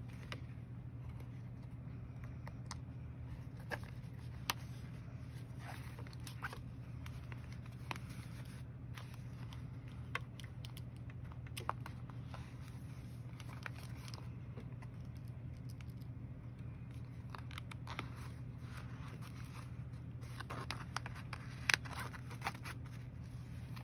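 Journals and their packaging being handled: scattered light scrapes, taps and clicks over a steady low hum, the sharpest clicks a little before the end.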